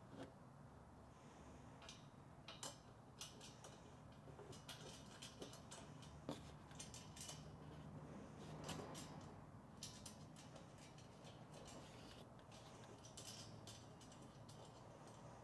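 Faint clicks and taps of small metal bolts and washers being handled and threaded by hand through a metal mounting bracket on a metal Molle panel, with a brief rustle of handling about halfway through.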